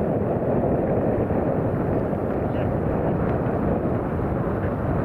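Steady, low rushing noise of wind buffeting the microphone.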